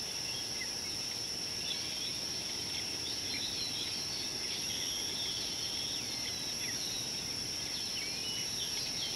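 Outdoor bush ambience: insects keep up a steady, unbroken high-pitched drone, and many short bird chirps and calls come and go over it.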